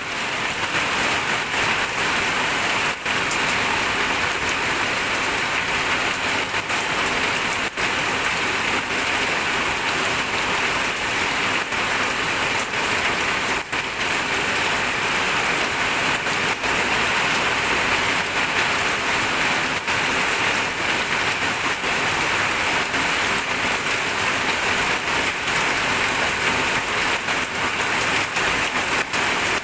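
Steady rain falling, a dense, even hiss of many drops.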